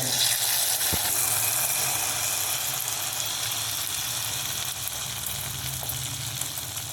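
Potato-and-maida dough pieces coated in cornflour batter sizzling as they deep-fry in hot oil, a steady dense hiss that eases slightly toward the end.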